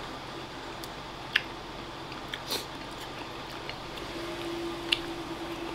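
Quiet eating sounds: udon noodles being chewed, with a few sharp clicks of chopsticks against the ceramic bowl, over a steady air-conditioner hum.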